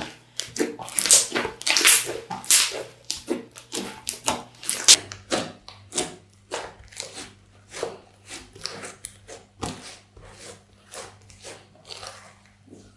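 Slime being squished and poked by hand: an uneven run of short squelches and clicks, several a second, softer after about five seconds.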